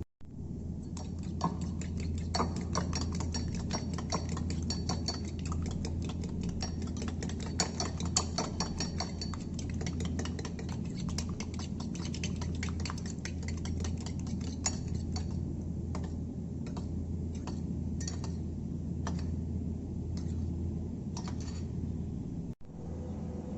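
A utensil clicking rapidly against a bowl while mixing. The clicks are dense for most of the time, then thin out to slower, separate strikes, over a steady low hum.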